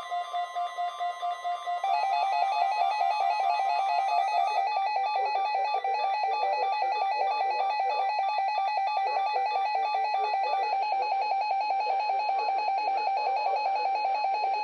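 Electronic emergency alert alarm tone: rapid beeping for about two seconds, then a louder, fast warble between two pitches.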